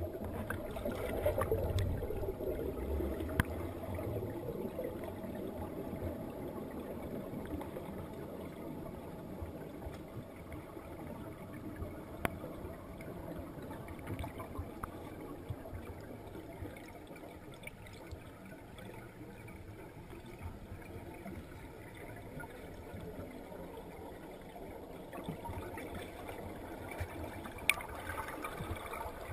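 Underwater ambience heard through a camera's waterproof housing: a muffled, even water rush with scattered faint clicks, louder in the first few seconds.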